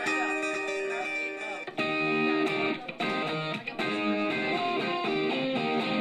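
Guitar music: held, ringing chords and notes, changing to a new chord about two seconds in, then cutting off at the very end.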